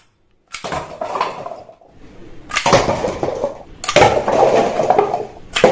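Hard plastic toy guns clattering and rubbing against each other as they are handled during cleaning, in three bursts about a second long that each start suddenly.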